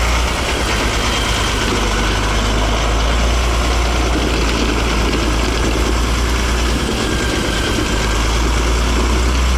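Heavy truck's diesel engine idling close by, a steady low drone.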